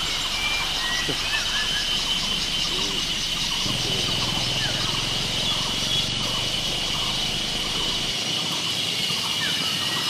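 Insects droning steadily at one high pitch, with scattered short bird chirps.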